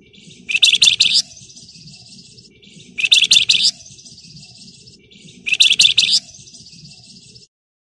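Flamboyan (wergan Jawa) bird singing its rapid 'ngebren' trill: three identical phrases about two and a half seconds apart, each a loud burst of quick, high chattering notes that runs on into a softer, high buzzing trill. The song stops shortly before the end.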